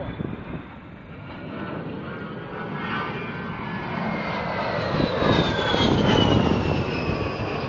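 A-10 Warthog's twin TF34 turbofan engines whining as the jet flies low past, growing louder to a peak about five seconds in. The whine then drops in pitch as it passes and starts to move away.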